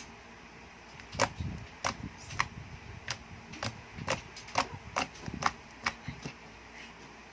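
Homemade blue glitter glue slime squeezed and stretched by hand, giving a quick, irregular string of sharp clicks and pops, starting about a second in and stopping shortly before the end.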